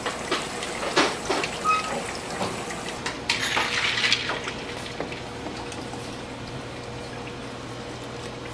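Water pouring and splashing, with a few sharp clinks and knocks of kitchen utensils and dishes. The splash is loudest about three to four seconds in, and the second half is quieter.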